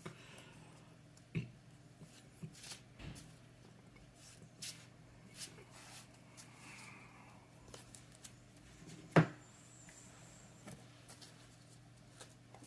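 Game cards being handled on a tabletop: scattered soft taps and slides of cards, with one sharper knock about nine seconds in, over a low steady hum.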